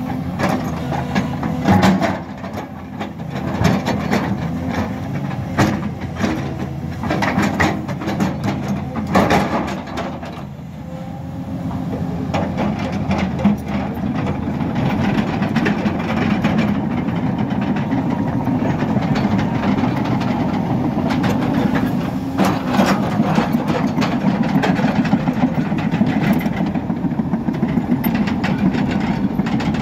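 Hyundai crawler excavator's diesel engine running as the machine works, with clanks and knocks from the boom, bucket and tracks in the first ten seconds or so. From about twelve seconds in the engine runs steadier and louder, under load.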